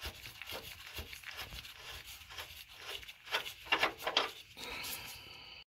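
Gloved fingers rubbing and scraping on metal while working a freshly loosened bolt on a rusty bumper bracket: a run of faint scratchy scrapes, brighter about three to four seconds in.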